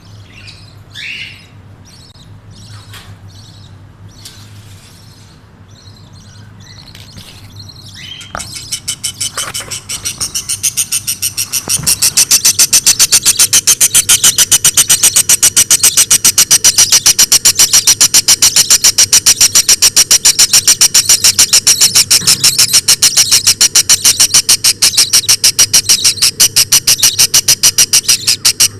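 Budgerigar chicks calling: a few scattered chirps, then from about eight seconds in a loud, rapid, regular string of high-pitched cheeps, several a second, like chicks begging for food.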